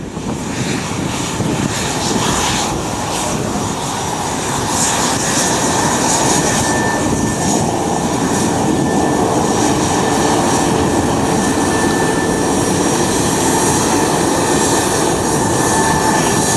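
Airplane engines running loud and steady at close range: a broad rushing noise with a thin high whine held through it.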